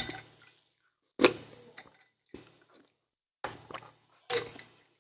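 Close-up eating sounds: wet chewing and mouth noises in short separate bursts, about one a second.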